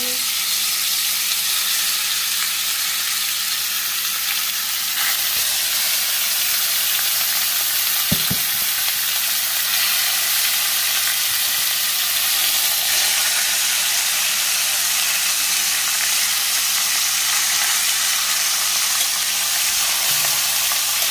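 Seasoned chicken breasts sizzling steadily in a hot cast-iron grill pan as more pieces are laid in, with a single light knock about eight seconds in.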